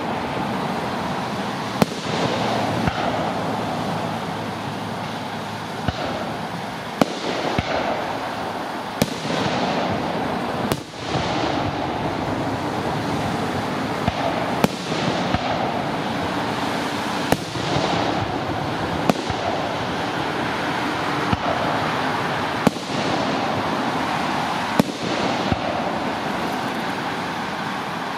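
Aerial fireworks shells bursting overhead: about a dozen sharp bangs, irregularly spaced one to a few seconds apart, over a steady background noise.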